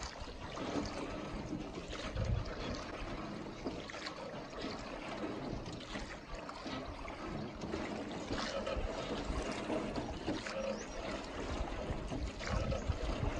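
Water trickling and splashing around a small rowboat being rowed along a calm river.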